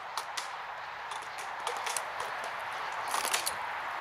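Inline skate wheels rolling on asphalt down an inline slalom course, with scattered sharp clacks as the flexible slalom gate poles are struck aside, several in quick succession about three seconds in.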